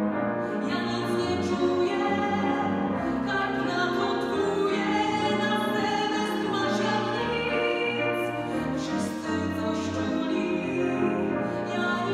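A woman singing a musical-theatre song in Polish, accompanied by a grand piano.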